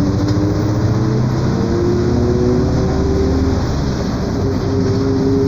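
Mercedes-Benz OF 1721 BlueTec 5 bus under way, its differential growling: a droning whine that rises slowly in pitch as the bus gathers speed, over the rumble of the drivetrain. It fades about halfway through and returns lower, rising again, a sign of a worn, noisy differential.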